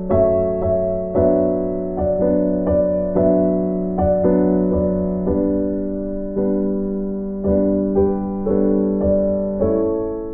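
Background music: a soft piano or electric-piano melody over a sustained low note, with notes struck about every half second.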